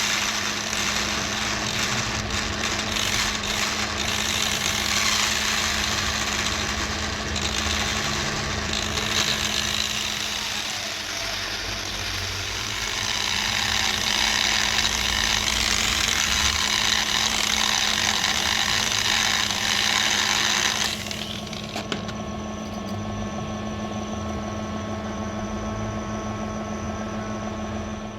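Electric stone-polishing machine running with a steady hum while a pasteling agate stone is ground against it, giving a loud gritty hiss. About two-thirds of the way through, the grinding noise stops and the motor runs on alone, quieter.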